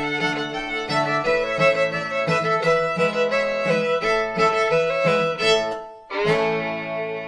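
Background music: a fast tune of short, evenly spaced notes that breaks off about six seconds in, followed by a single ringing chord that slowly fades.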